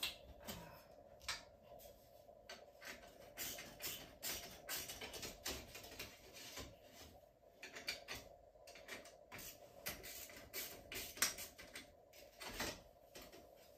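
Metal stovepipe being handled at its joint with the wall thimble: irregular light clicks, knocks and scrapes of sheet metal as the pipe is worked loose by hand, over a faint steady hum.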